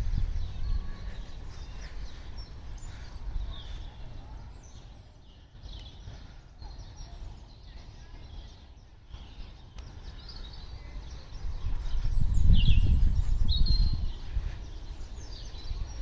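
Small birds chirping, short high calls scattered throughout, over a low rumble that swells loudest about twelve seconds in.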